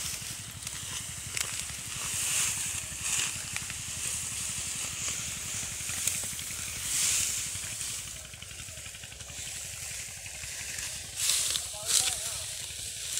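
Dry, cut wheat stalks rustling and crackling in irregular swells as they are gathered by hand and pressed into sheaves, over a steady low rumble.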